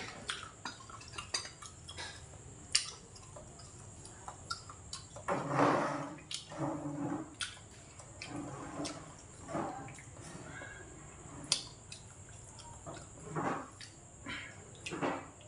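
Close-up eating sounds: wet chewing and mouth clicks, with a few louder, longer mouth sounds about a third of the way in and near the end, and light clinks of chopsticks and bowls.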